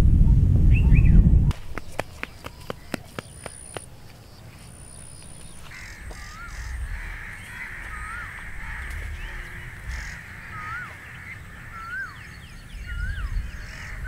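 A loud low rumble for the first second and a half, then a quick run of sharp clicks, then a bird calling over and over: a short rising-then-falling note about once a second over a steady high buzz.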